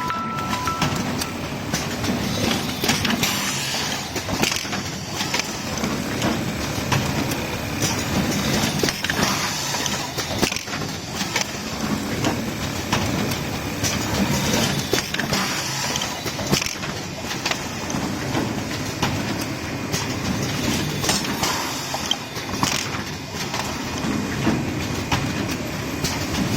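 Automatic towel cross-stitch sewing machine running, a steady mechanical clatter thick with rapid sharp clicks.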